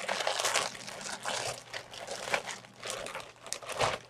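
Packaging crinkling and rustling in irregular bursts as it is handled and pulled open to get a t-shirt out.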